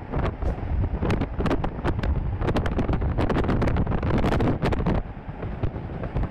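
Gale-force storm wind buffeting the microphone aboard a ship: a heavy low rumble full of sharp crackles, easing somewhat after about five seconds.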